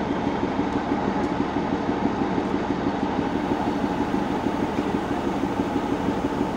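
Darjeeling Himalayan Railway narrow-gauge diesel locomotive passing slowly with two coaches, its diesel engine running in a steady drone with a fast pulse.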